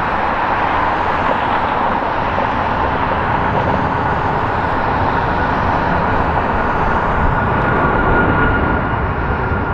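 Airbus A340-541's four Rolls-Royce Trent 500 jet engines at takeoff power, heard as a steady rushing jet noise during the takeoff roll and liftoff. The noise grows slightly louder toward the end, and a high engine whine comes through.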